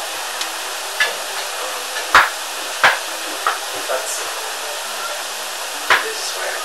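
Steady loud hiss of background noise, with about half a dozen short sharp clicks and knocks scattered through it, the loudest a little after two seconds in.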